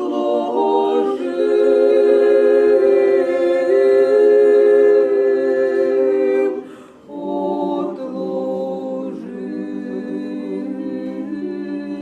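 Orthodox church choir singing unaccompanied liturgical chant in several voices, with long held chords. There is a short break about halfway through, then the next phrase begins.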